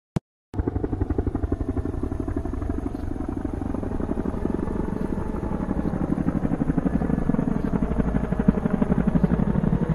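Steady cabin noise of a jet airliner in flight, with a fast, even flutter running through it. It begins abruptly about half a second in, just after a brief click.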